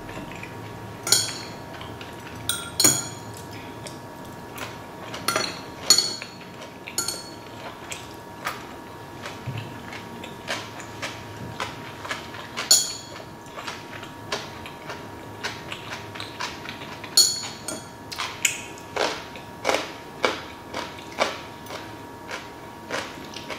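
Metal chopsticks clicking and scraping against metal trays and a ceramic bowl in scattered sharp taps, with close-up chewing of food between them. The chewing settles into an even rhythm near the end.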